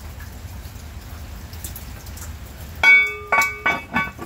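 Steady rain, then about three seconds in, four clanks with a bell-like ring, the first the loudest, as the cast-iron lid of a Lodge camp Dutch oven is set on the pot.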